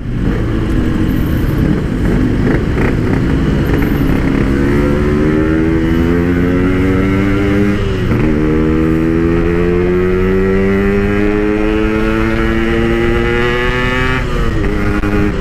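Two-stroke single-cylinder Yamaha RX-King motorcycle with a quiet PK 1 aftermarket exhaust, riding and accelerating gently. The engine note climbs slowly in pitch, drops at a gear change about eight seconds in and again near the end, then climbs again.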